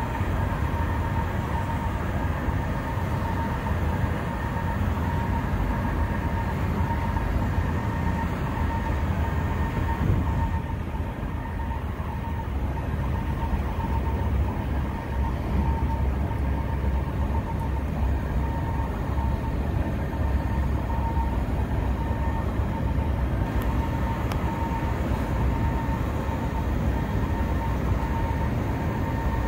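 Passenger ferry's engines running steadily under way: a low drone with a steady high whine over it.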